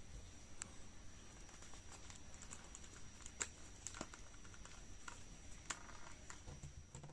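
Faint, scattered small clicks and taps of hands handling a plastic anime figure, fingers and figure parts knocking lightly as it is turned and adjusted.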